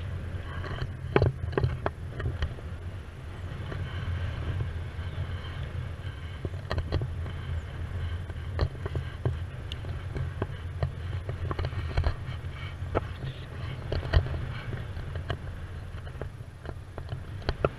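Wind rushing over an action camera's microphone during a paraglider flight: a steady low rumble with scattered sharp clicks and taps.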